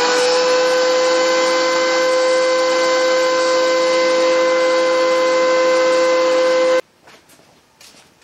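DeWalt benchtop thickness planer running with a loud, steady high whine while red oak boards are planed. The sound cuts off abruptly near the end.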